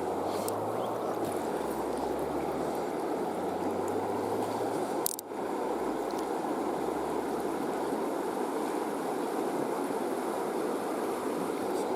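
Kings River flowing: a steady rush of moving water, with one brief sharp click about five seconds in.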